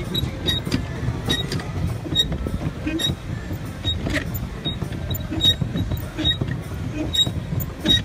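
A small boat's drive mechanism squeaking and clicking in a steady rhythm, about once or twice a second, as it is propelled across the water, over a low steady rumble.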